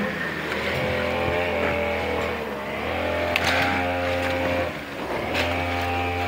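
A small engine running at a steady speed, its hum dipping briefly about two and a half and five seconds in, with a few sharp clicks over it.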